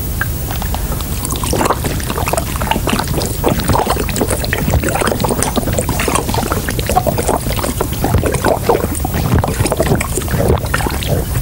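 A man gulping water in one long continuous drink from a bottle, with irregular swallowing sounds, over a steady low background rumble.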